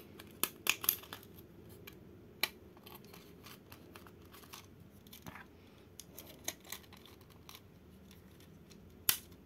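Hard plastic clicks and light handling noise as a Mini 4WD's plastic body shell is pressed onto its chassis. A few scattered sharp snaps, the loudest near the end.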